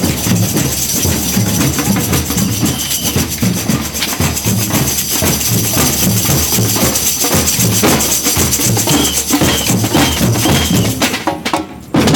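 Percussion band playing a steady drum rhythm with a bright jingling of tambourines and shakers over it. The playing thins out near the end, then comes a sharp loud drum hit.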